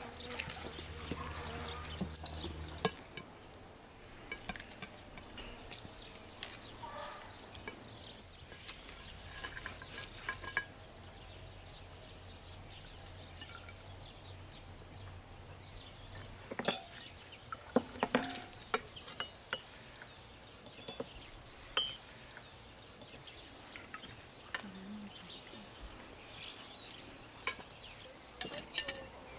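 Cutlery clinking and scraping on china plates as a stuffed roast turkey is carved with a knife and its stuffing is spooned out. Scattered sharp clinks come every few seconds, a few louder ones near the middle and the end.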